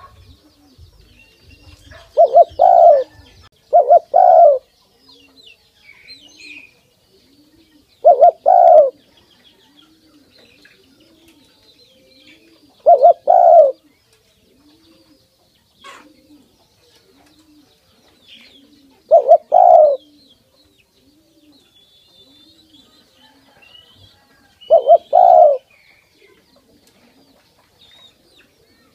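Spotted dove cooing: six loud two-note coos a few seconds apart, the first two in quick succession. Faint chirping of small birds in the background.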